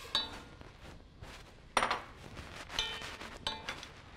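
Kitchen utensils and dishes clinking and knocking: four or so separate clinks, the loudest about two seconds in, some with a short ring.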